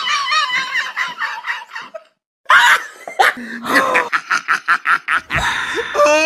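A young child's high-pitched laughter in fits, with a short break about two seconds in, then a quick run of giggles at about five a second. Music comes in near the end.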